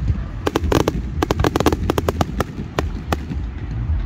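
Aerial fireworks shells bursting: a quick string of sharp bangs and pops, starting about half a second in and ending a little after three seconds, over a low rumble.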